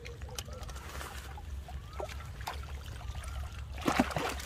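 Water trickling and dripping from a mesh fishing keep net as it is lifted and handled out of the river, with a few small clicks; the water noise swells loud near the end as more of the net comes up.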